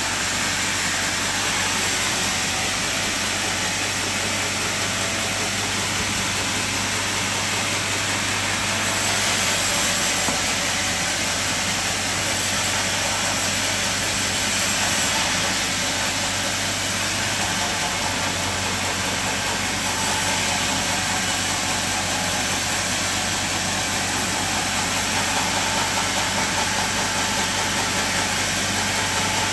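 Sawmill machine running steadily: a constant low hum under an even hiss, unchanging in pace.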